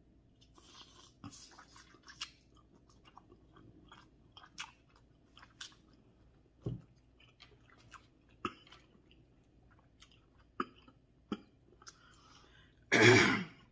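Close-up chewing of seafood in butter sauce, with a scatter of short, sharp wet mouth clicks. A loud, brief throat-clear comes near the end.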